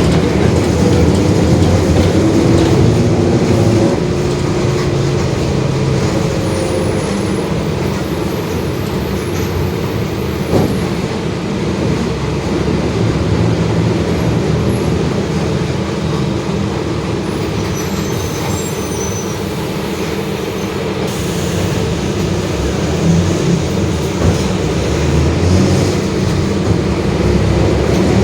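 Mercedes-Benz OF-1721 BlueTec 5 city bus under way, its diesel engine running with the differential growling underneath. It is louder for the first few seconds, with the engine note gliding up, and swells again near the end.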